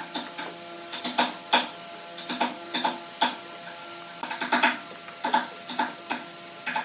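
Irregular runs of sharp taps and clicks, several in quick succession and then a pause, over a faint steady hum.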